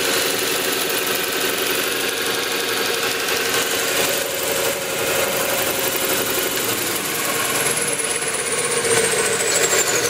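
Jet 6x48-inch belt and 12-inch disc sander combo running with no load, its 1.5 hp belt-drive motor humming steadily with a high whine. About seven seconds in the machine winds down, its whine falling steadily in pitch.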